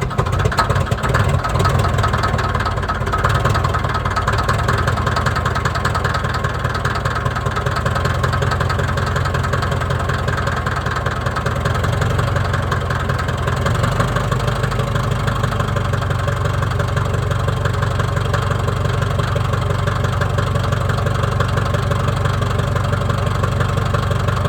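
Diesel engine of a Komatsu D57S1 track loader running on a cold start after a spritz of starting fluid. It runs unevenly at first, then settles into a steady idle a little past halfway.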